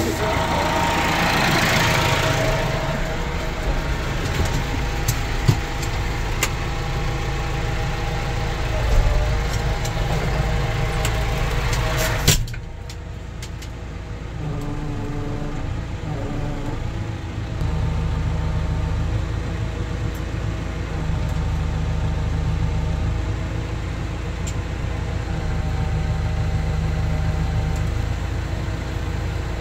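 IMT 549 DV tractor's diesel engine running, with scattered knocks and clatters over it. About twelve seconds in the sound drops suddenly to a steadier, muffled engine hum heard from inside the cab, which grows fuller a few seconds later.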